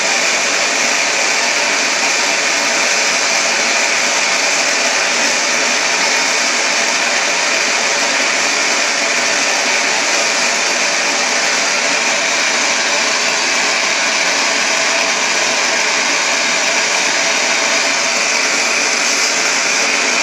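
LPG gas torch burning with a big flame, a loud, steady, even rushing hiss, as it heats a copper boiler up towards red heat for silver soldering.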